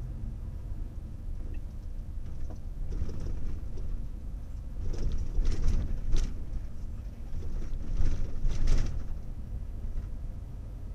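A vehicle driving along a town street: a steady low rumble of engine and road noise. Two louder, rushing surges come about five and about eight seconds in.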